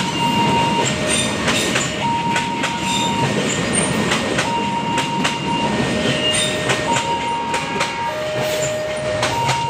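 Passenger train coaches rolling past at speed, the wheels knocking over rail joints in a clickety-clack. Over it a level-crossing warning alarm sounds two tones, switching between a high and a low tone about every second.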